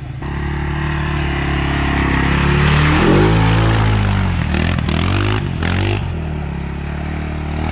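Carbureted 400cc Suzuki four-wheeler's single-cylinder engine running under load. Its pitch rises and falls several times in the middle as the throttle is worked.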